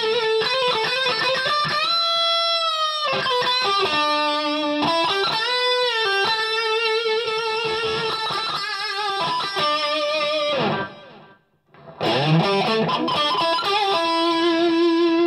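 Electric guitar lead solo through a Kemper Profiler on an overdriven plexi-style profile with added effects, heard through a Marshall 16-ohm cabinet: long sustained notes with vibrato, a brief break about eleven seconds in, then a slide up into more held notes.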